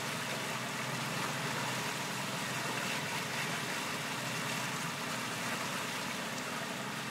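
Motorboat engine running steadily while trolling at about five and a half knots, under an even hiss of wind and water.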